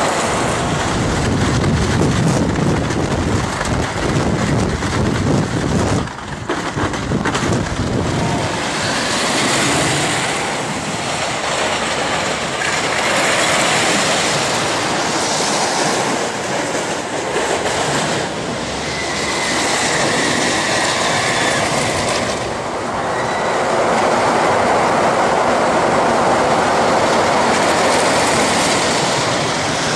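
Wooden roller coaster train rattling and clattering along its track at speed.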